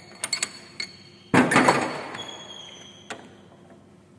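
Metal parts knocking and clinking as they are handled at a lathe: a few light clicks, then a louder knock about a second and a half in whose high metallic ring dies away, and one more small click near the end.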